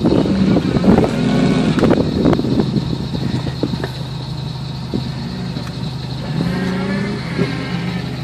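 Off-road Jeep's engine running at low revs as it crawls back down a rocky slope and pulls onto flat ground, with a steady low hum and a few rises and falls in pitch.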